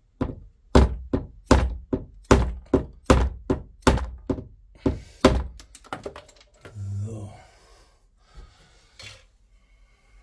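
Plastic hammer tapping a pin in to fix a model railway turnout in place: a run of about fourteen quick, sharp taps over the first five and a half seconds, then one softer knock near the end.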